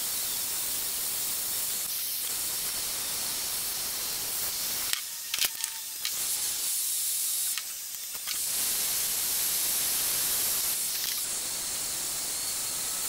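Handheld gas torch hissing steadily as its blue flame heats a copper pipe joint for soldering. The hiss breaks off briefly twice, about five and eight seconds in, with a few clicks at the first break.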